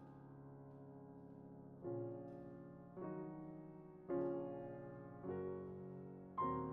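Grand piano played four-hands, softly and slowly: a held chord fades away, then from about two seconds in a new chord is struck roughly once a second, each one ringing and dying away.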